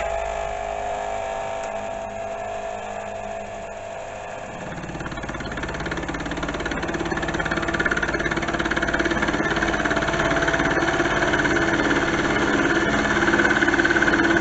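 Milling machine running under power feed on a finishing pass through a steel block; about four and a half seconds in the cutter bites in and a louder, rattly cutting sound builds and holds steady.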